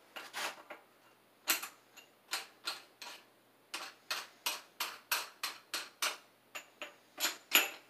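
A cordless drill's keyless chuck being turned by hand to fit a half-inch drill bit, clicking as it ratchets. A run of short, sharp, irregular clicks, about three a second, loudest near the end.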